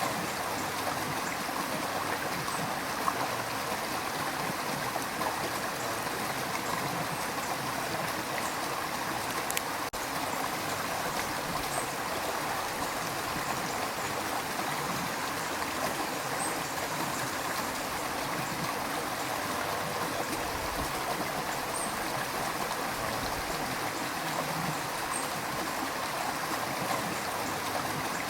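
River water rushing and gurgling steadily over rocks, a continuous even flow.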